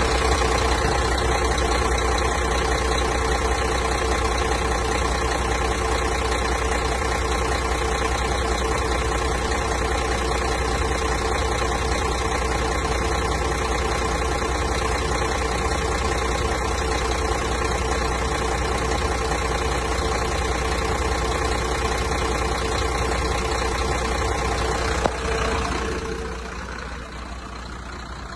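Mercedes-Benz Axor 2533 truck's six-cylinder diesel engine idling steadily, growing quieter near the end.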